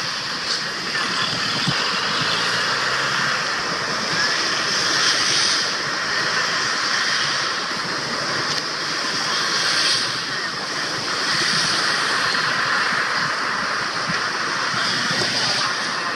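Airbus A320-family airliner's jet engines at takeoff thrust, a steady roar that swells and eases slightly as the aircraft rolls down the runway and climbs away.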